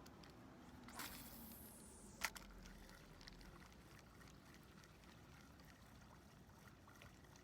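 Faint lapping of lake water, with a brief whoosh about a second in and one sharp click a little over two seconds in.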